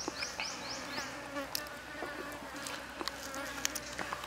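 Insects buzzing, with a rapid run of high chirps in the first second and a few sharp clicks near the end as a knife cuts into a fried chicken leg on a wooden board.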